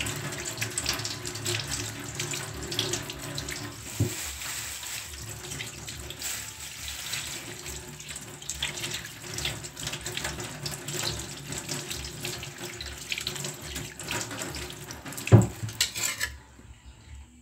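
Water running from a kitchen tap into a stainless steel sink, splashing over potatoes being rubbed clean by hand. A sharp knock near the end, the loudest sound, and the water stops shortly after.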